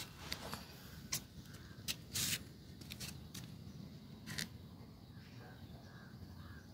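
Pet parrot playing with water: scattered small clicks and taps from its beak and feet, with a short splashing rustle about two seconds in.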